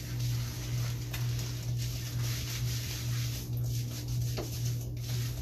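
Shower water running and spattering, over a steady low hum.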